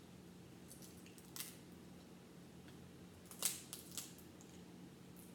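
Shellfish shells cracking and snapping as they are picked apart by hand: a handful of sharp cracks, the loudest about three and a half seconds in, over a low steady hum.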